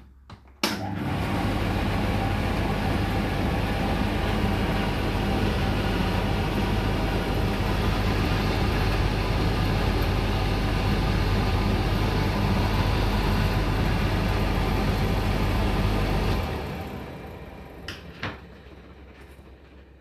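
Indesit IDC8T3B tumble dryer's motor and fan running with the drive belt off, a steady hum and whirr. It starts with a click about a second in, then shuts off and spins down near the end, followed by a couple of clicks.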